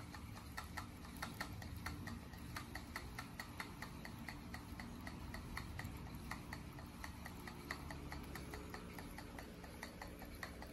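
Spinning fishing reel being cranked by hand to wind new line onto its spool, giving a faint, steady clicking at about four clicks a second.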